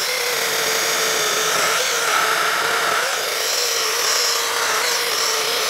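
Hychika CS18D 18-volt brushless mini chainsaw cutting through a seasoned apple-wood log about 6.5 inches thick, the motor and chain running with a steady whine under load without hesitating or stalling.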